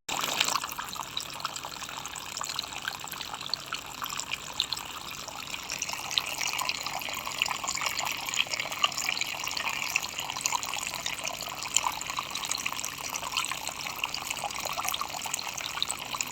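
Small homemade plastic-bottle waterfall fountain running, water trickling and splashing steadily.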